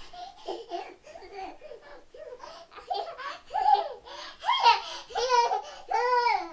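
A toddler giggling and babbling in a string of short, high-pitched vocal bursts that grow louder, ending in several longer laughs in the last two seconds.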